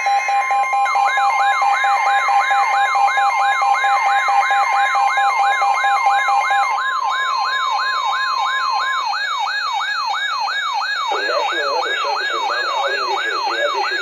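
Weather alert radios sounding for a Severe Thunderstorm Warning. A rapid siren-like warble rises over and over, about two and a half sweeps a second, over a steady alert tone near 1 kHz that cuts off partway through. A second steady tone stops a little earlier. About 11 seconds in, a voice starts faintly beneath the alarm.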